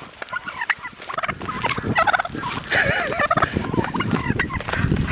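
Male turkey gobbling repeatedly in rapid, warbling calls.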